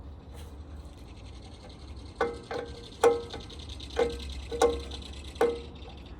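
Six irregular ringing metal-on-metal clanks from about two seconds in, as metal parts are worked on a steel generator casing. Behind them runs a fast, dry, high-pitched rattling call, typical of a kingfisher.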